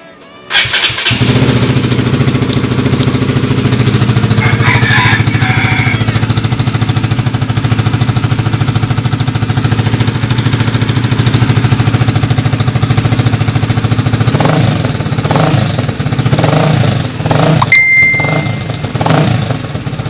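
Honda RS150R's single-cylinder four-stroke engine, breathing through a replica Cha Rama conical screen-type open muffler with its silencer fitted. It starts about half a second in and idles steadily, then is revved in a series of short blips in the last few seconds.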